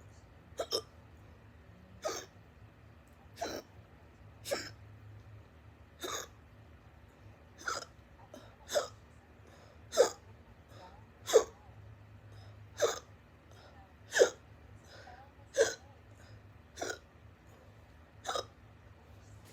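A person hiccuping loudly and steadily, about fourteen sharp hiccups at a regular pace of roughly one every one and a half seconds.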